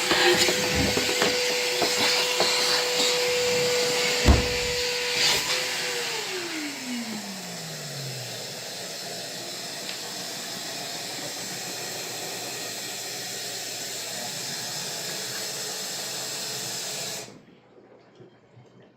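An electric motor runs with a steady whine and a hiss, then is switched off about five seconds in, its whine falling in pitch as it spins down. A hiss continues until it cuts off suddenly near the end, with a single knock shortly before the switch-off.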